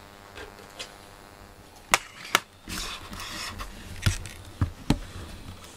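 Handling noise from a handheld camera being moved in close: a few sharp clicks and knocks, with a short rustle in the middle.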